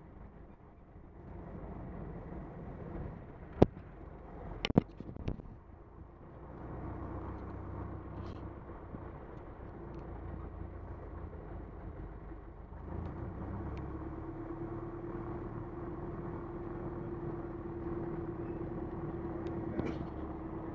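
Van's RV-4 light aircraft's piston engine and propeller running while it taxis. The engine noise steps up about 6 and 13 seconds in, with a steady hum in the later part. A few sharp clicks come about 4 to 5 seconds in.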